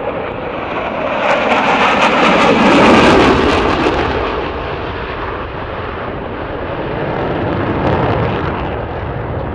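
Jet noise from a pair of Dassault Mirage 2000N fly-past, their single SNECMA M53-P2 turbofans swelling to a loud crackling peak two to three seconds in, then fading, with a smaller swell near the end.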